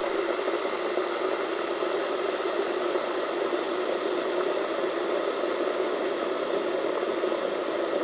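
Electric 2-litre kitchen kettle heating water: a steady, even rushing noise.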